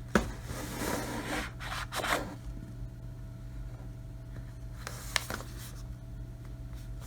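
Cardboard packaging being handled and worked open: a sharp tap near the start, then about two seconds of scraping and rustling, and a couple of light clicks later on. A steady low hum runs underneath.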